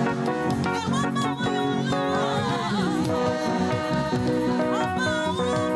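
Live Nigerian gospel praise music: a church choir and band playing, with voices singing and ad-libbing over the steady band between lines of the refrain.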